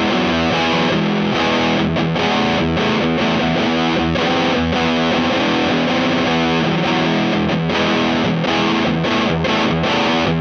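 Electric guitar played through a Space Sounds Spacecraft, a Rat-style distortion pedal, with thick sustained distorted chords and riffs and a few short breaks between phrases.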